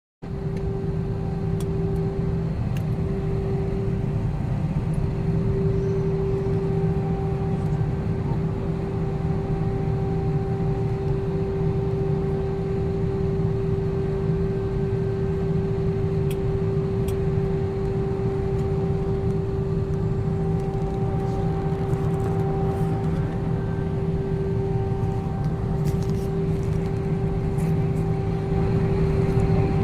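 Airliner cabin noise: a steady low rumble and rush of air with a constant hum tone, from the cabin air conditioning and the aircraft in flight. A few faint ticks sound over it.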